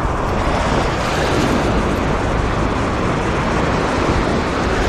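Steady rushing noise of surf breaking and washing up the beach.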